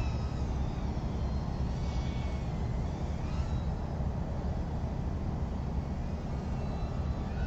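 Small FPV racing quadcopters' brushless motors whining faintly, the pitch rising and falling in short glides as the throttle changes, over a steady low rumble.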